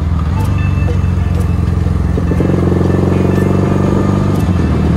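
Kawasaki W650 parallel-twin engine running while the motorcycle is ridden at road speed, with steady wind and road noise. A stronger, higher engine note comes in about two seconds in and eases off again near four seconds.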